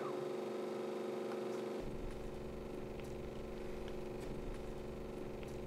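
A steady electrical or mechanical hum, with a deeper low rumble joining about two seconds in.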